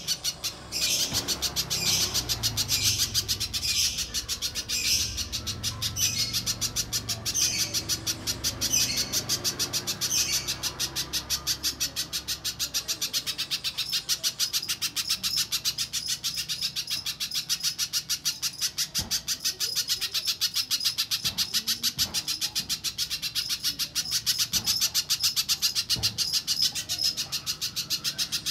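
Little spiderhunter singing: a fast, continuous chatter of sharp, high notes, with louder separate chirps about once a second in the first ten seconds.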